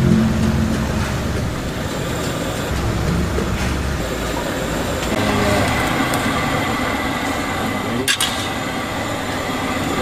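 Steady low rumbling background of a street food stall, with a soup pot being stirred on the burner and one sharp metal clink about eight seconds in.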